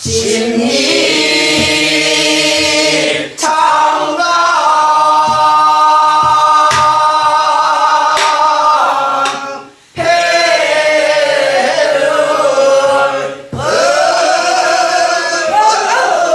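Mixed group of voices singing a Korean Namdo folk song in unison, in long held phrases with bending, ornamented pitch, breaking for breath about three, ten and thirteen seconds in. A few sharp knocks sound beneath the singing.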